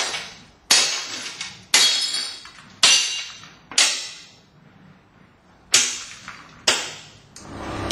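Hammer blows smashing a glass shelf glued to a glass panel, testing the bonded joint to destruction. Six sharp strikes about a second apart, with a pause of about two seconds after the fourth, each followed by the ringing clatter of breaking glass.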